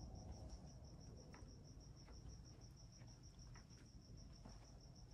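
Near silence with a faint cricket chirping steadily, about nine pulses a second, over a low room hum.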